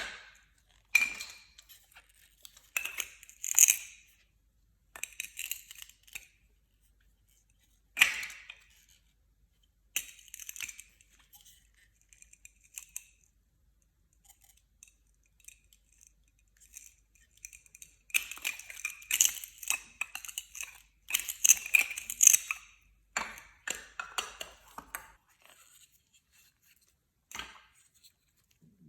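Short bursts of crinkling, rustling and clicking noise in scattered clusters, with near-silent gaps between them. A single sharp click stands out at about 8 s, and the densest, loudest stretch comes in the second half.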